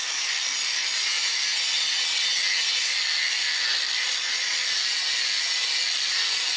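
Angle grinder grinding down the protruding edges of the laminated steel core of a toroidal transformer: a steady, high grinding hiss of the disc on steel.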